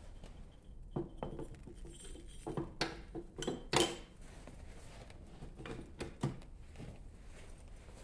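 A handful of short, sharp metallic clinks and knocks, the loudest about four seconds in, around a freshly poured copper casting in a cast-iron ingot mold.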